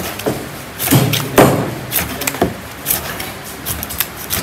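A large knife chopping a king fish into steaks on a plastic cutting board: a series of irregular thuds and knocks as the blade cuts through the fish and strikes the board.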